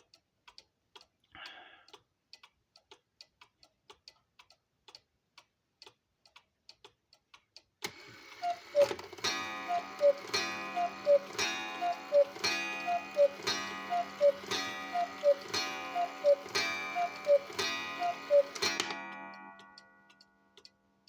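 Mechanical cuckoo clock ticking, then calling the hour: about ten two-note cuckoo calls, each with a strike, followed by a low gong ringing on and fading after the last call.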